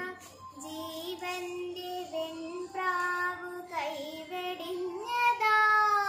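A girl singing solo, holding long notes with smooth slides between them; her voice rises in pitch about five seconds in.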